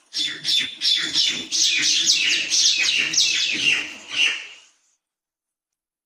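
Crow calling: a rapid run of short, harsh calls, each falling in pitch, that stops about three-quarters of the way through.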